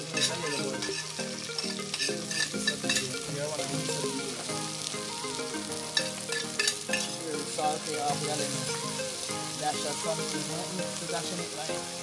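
Sliced onion, scallion and hot pepper sizzling in oil in a black iron pot, with a spoon stirring them and clicking against the pot now and then.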